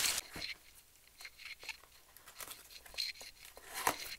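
Box and wrapping of an acrylic desk organizer being opened by hand: a crinkling rush that stops a moment in, then scattered light clicks, taps and rustles as the packaging is handled.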